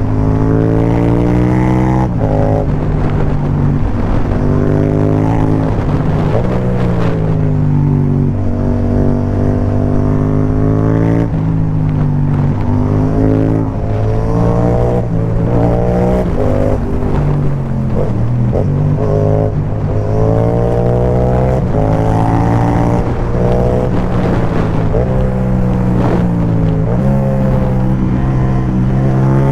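Yamaha MT-07's parallel-twin engine through an Akrapovic carbon exhaust with the dB killer removed, ridden hard: the note repeatedly climbs in pitch under acceleration and drops sharply at each gear change or roll-off.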